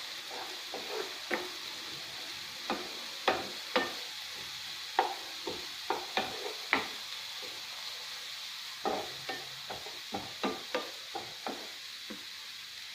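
Chopped onions sizzling in hot oil while a wooden spatula stirs them, tapping and scraping against the pan in irregular knocks over a steady hiss.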